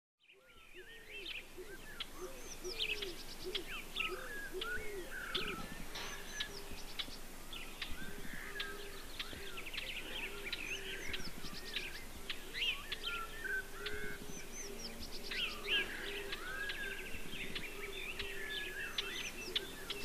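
Several wild birds singing and calling together: many quick chirps and warbled phrases, with a lower call repeating underneath. It fades in from silence at the start.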